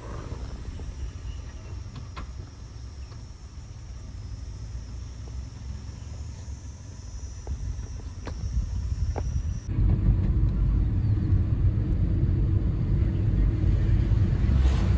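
A steady high insect drone over a low rumble, with a few faint clicks. About ten seconds in, the sound cuts to the louder, steady low road and engine rumble of a moving car, heard from inside it.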